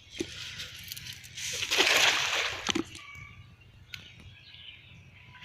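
Splashing and sloshing of pond water as a cast net holding caught fish is hauled in. It swells to a burst about two seconds in, then fades to faint rustling.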